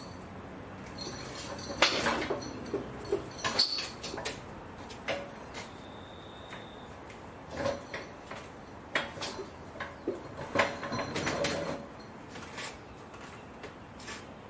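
Irregular knocks, clunks and short scrapes of hard objects being handled, in two main bunches about two and ten seconds in.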